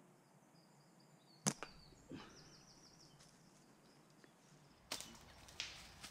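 A single sharp crack of a catapult (slingshot) being shot up into the trees about one and a half seconds in, followed by faint knocks. Near the end come two more short, sharp knocks.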